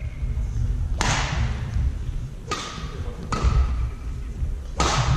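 Badminton rally in a sports hall: sharp racket hits on the shuttlecock, four of them about a second apart, each trailing off in the hall's echo, over low thuds.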